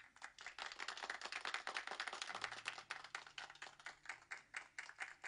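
Recorded clapping and applause played from a phone held up to the microphone. It is dense at first, thins to separate claps near the end and cuts off suddenly.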